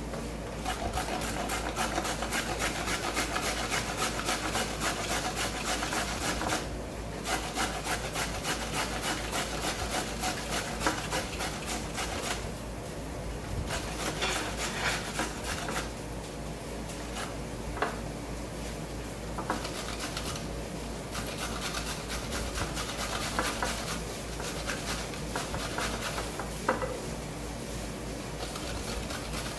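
A carrot being grated by hand on a multi-sided stainless steel box grater: quick repeated scraping strokes of the carrot over the metal blades, in runs broken by short pauses.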